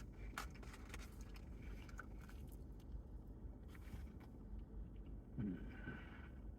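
Faint chewing and mouth clicks of someone eating a burger, over a low steady hum, with a brief low vocal sound about five and a half seconds in.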